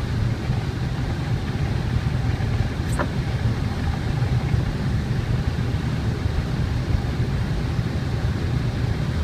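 Steady low rumble of a car's engine and tyres heard from inside the cabin while driving on a snowy road, with one short sharp click about three seconds in.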